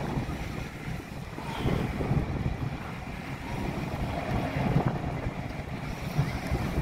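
Wind buffeting the microphone, a low rumble that rises and falls in gusts.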